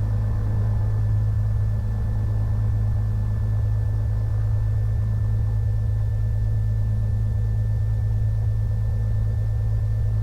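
Cessna 182M's six-cylinder Continental O-470 engine and propeller running steadily at low taxi power.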